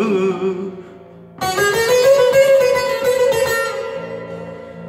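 Bağlama (long-necked Turkish saz) playing an instrumental fill between sung lines: the last sung note fades in the first second, then about a second and a half in a burst of rapid strumming on the strings rings out and slowly dies away.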